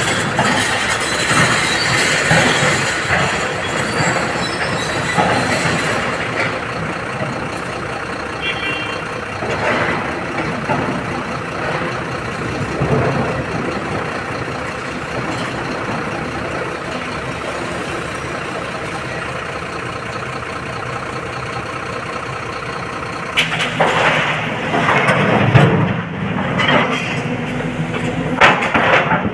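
Heavy diesel engine of a SANY 225 excavator running steadily under working load while loading a dump truck, with several louder uneven knocks over the last few seconds.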